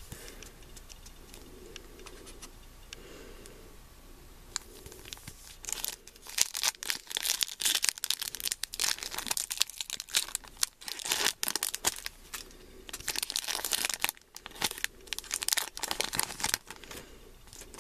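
Foil wrapper of a Pokémon trading card booster pack being torn open and crinkled by hand: quiet handling at first, then from about six seconds in a dense run of crackling and tearing with a short lull near the end.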